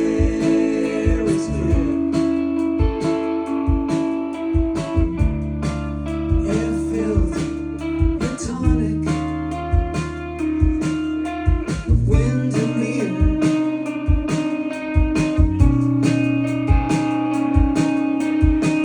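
Live indie rock band playing: guitars and electric bass over a steady drum beat.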